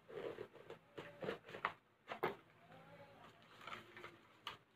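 Small cardboard box being opened by hand, with the lid sliding off and the paper wrapping inside rustling. It comes as a quick string of short scrapes and taps in the first couple of seconds, then a few more near the end.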